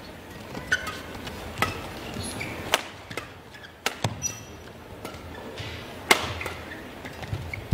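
Badminton rackets striking the shuttlecock during a fast doubles rally: about half a dozen sharp cracks at irregular spacing, the loudest about six seconds in.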